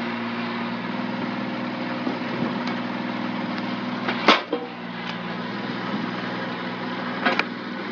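Motor of a homemade firewood-cutting machine running steadily, with a brief sharp crack about four seconds in and another near the end as its blade cuts through pieces of wood fed against it.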